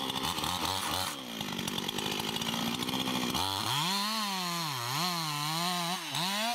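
Chainsaw running and cutting wood. About halfway in, its engine note becomes clear and swings down and up over and over.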